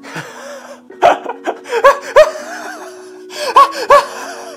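A man laughing deliberately in short, loud bursts, one run about a second in and a second run near the end, to coax a dog over. Soft background music plays underneath.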